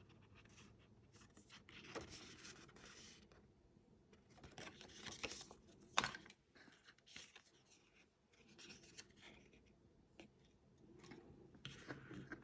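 Faint, intermittent rustling and scraping of paper and cardboard packaging being handled, with one sharp click about six seconds in.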